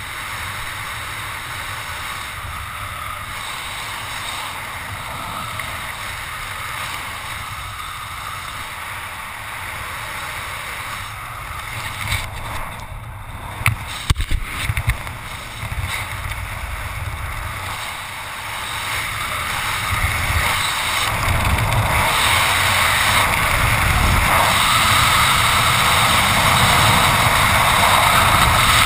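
Freefall wind blasting over the camera's microphone: a steady rush of wind noise that grows louder about two-thirds of the way through, with a few short knocks from buffeting near the middle.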